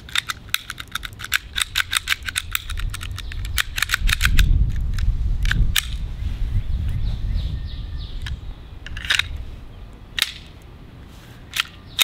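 A Sig P365 CO2 BB air pistol being worked to clear a jam: a fast run of sharp clicks for the first few seconds, then a few single sharp clicks spaced about a second apart near the end.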